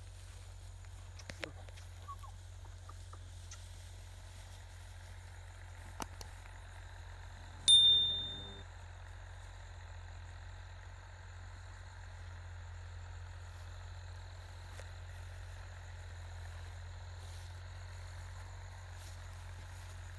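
A single loud metallic bell-like ding about eight seconds in, ringing out and fading over about a second, over a steady low rumble; a few faint clicks come before it.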